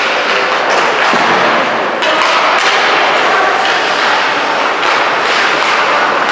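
Ice hockey play: a steady hiss of skates scraping the ice, with sharp clacks of sticks and puck throughout.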